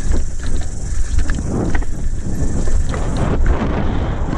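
Wind buffeting a helmet-mounted camera while a hardtail mountain bike rides fast over bumpy grass, with a steady low rumble and frequent short rattles and knocks from the bike.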